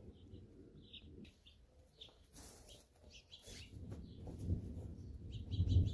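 Small birds chirping, many short high chirps scattered throughout, over a low rumble that grows louder in the second half.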